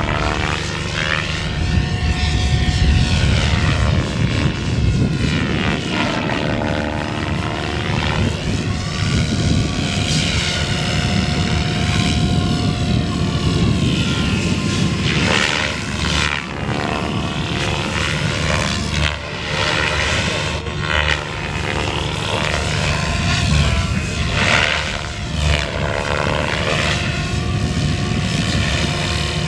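Electric SAB Goblin 630 RC helicopter flying 3D aerobatics: a continuous whine and whirr from its motor and rotor blades that swoops up and down in pitch again and again as it manoeuvres and passes.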